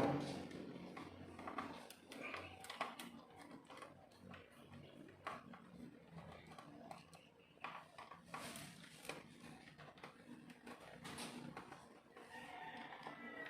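Faint, scattered clicks and taps of small plastic parts and screws being handled as a car instrument cluster is taken apart. Near the end a rooster crows faintly in the background.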